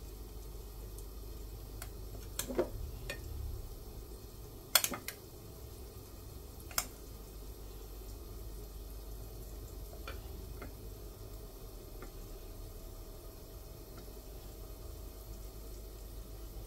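A metal spoon clinking against a ceramic plate and pastry a few times while samosa filling is spooned into pastry cones; the loudest clink is a quick double about five seconds in, with fainter taps later, over a steady low room hum.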